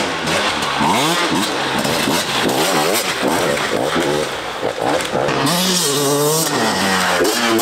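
Enduro dirt bike engines revving up and dropping back again and again as riders work the throttle over rough ground. About five and a half seconds in, a different bike takes over, its revs rising and falling in the same way.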